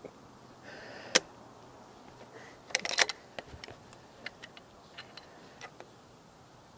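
Hunters shifting and handling gear in a tree stand: one sharp click about a second in, a short rattle of small clicks around three seconds, then a few scattered soft clicks.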